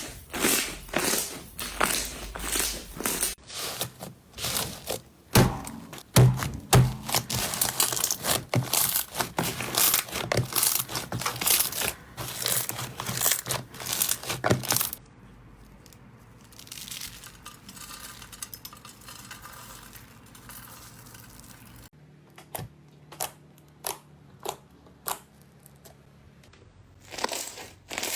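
Slime being squeezed and poked by hand, with dense crackling and popping for about fifteen seconds. A quieter, softer stretch follows, then scattered single pops near the end.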